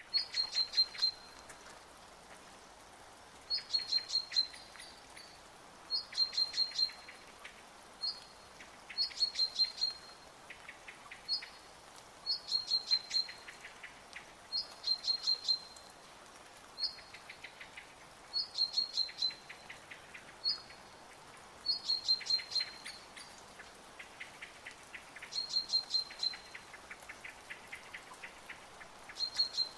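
A bird singing the same short phrase over and over, a quick high trill every two to three seconds, with a fainter, lower run of rapid notes between the phrases.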